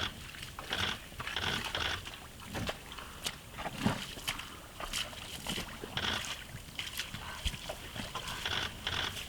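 Noise from a Canon camera picked up by its own microphone: short high-pitched buzzing bursts repeating irregularly, with scattered sharp clicks.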